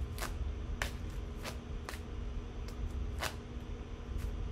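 Quiet room tone with a steady low hum, broken by about six soft, sharp clicks at irregular intervals.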